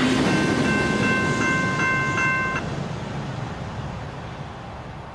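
Level-crossing warning bell ringing over the fading rumble of a passing V/Line VLocity diesel train. The bell cuts off suddenly about two and a half seconds in as the crossing clears, and the train noise dies away.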